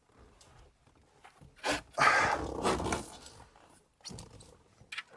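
Hands rustling and scraping behind a car dashboard, with a sharp click and a few small knocks, as the speedometer cable is worked into the back of the speedometer; the loudest rustling comes about two seconds in and lasts about a second.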